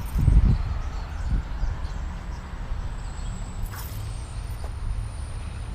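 Steady low rumble of a vehicle running, with a few faint knocks.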